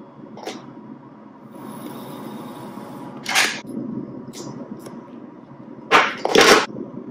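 Small scissors snipping the strand ends of three-strand nylon rope, trimming a finished eye splice: several short crisp cuts, the loudest about three seconds in and a close pair near the end.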